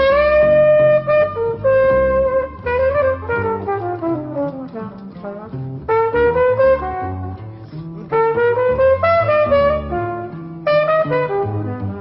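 Jazz trumpet playing a melody over a plucked double bass, with a long downward slide about three seconds in.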